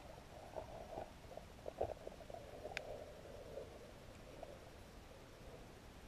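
Faint, muffled underwater noise heard through a camera's waterproof housing: scattered crackles and bumps that thin out about halfway through, with one sharp click a little under three seconds in.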